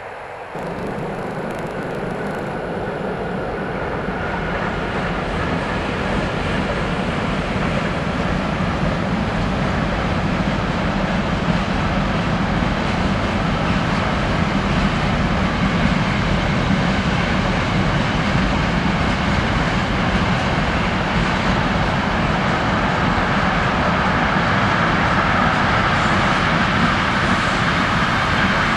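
Long container freight train rolling past: the steady rumble and rush of its wagons' wheels on the rails, growing louder over the first several seconds and then holding.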